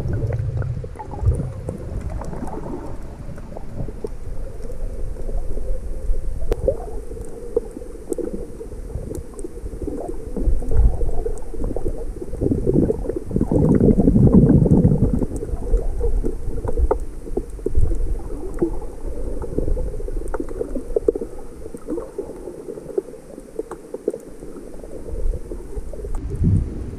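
Muffled underwater sound picked up by a GoPro Hero 5 held below the surface: low rumbling and sloshing of water moving past the camera, swelling louder about halfway through, with scattered faint clicks.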